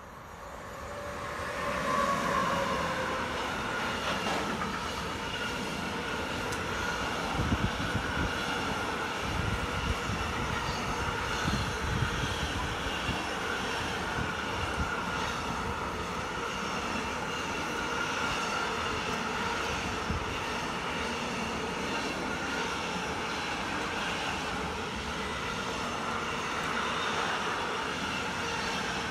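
Electric locomotive and a long intermodal freight train of lorry trailers on pocket wagons passing close by. The sound rises quickly over the first two seconds as the locomotive arrives, then settles into a steady rumble of wagon wheels on the rails, with a few louder clatters between about 8 and 12 seconds in.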